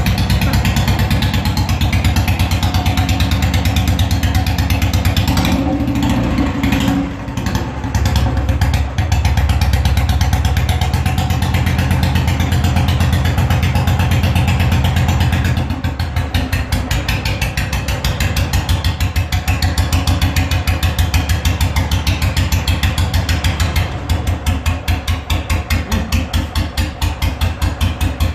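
Royal Enfield Bullet 350's single-cylinder four-stroke engine running, with its thumping exhaust beat. The throttle is blipped a few times a few seconds in, and the beat then settles into a slow, even idle with distinct separate pulses near the end.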